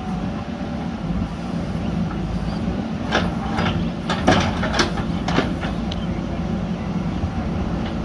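JCB backhoe loader's diesel engine running steadily as the backhoe digs. A quick run of about five sharp metallic clanks from the backhoe arm and bucket comes about halfway through.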